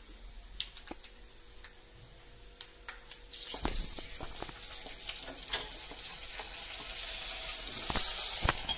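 Hot oil with mustard seeds, shallots and curry leaves crackling with scattered pops, then about three and a half seconds in a loud sizzle as the hot tempering hits the mango curry, swelling and dropping off shortly before the end, with a few knocks of the pan.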